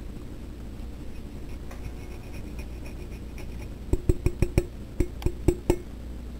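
A quick run of about nine sharp knocks with a short ring, lasting about a second and a half and starting about four seconds in: a handheld cheese grater being tapped to shake off the last of the grated manchego cheese.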